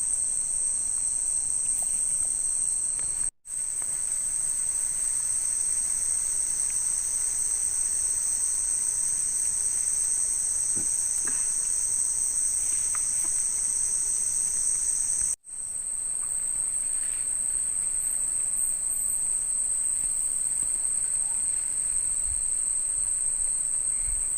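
Night insect chorus, crickets or similar, giving a steady, continuous high-pitched trill. It cuts out for an instant twice, about three seconds in and about fifteen seconds in.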